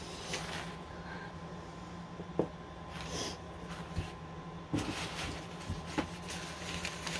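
Quiet handling noises from small resin bear figurines being picked up and set down: a few light, separate knocks and clicks, with two short breaths and a steady low hum underneath.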